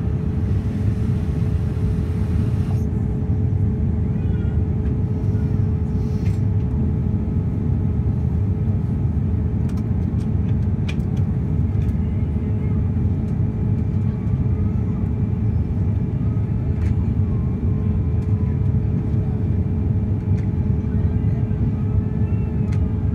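Steady airliner cabin noise in flight: a constant low roar of the engines and rushing air, with a steady hum tone running under it.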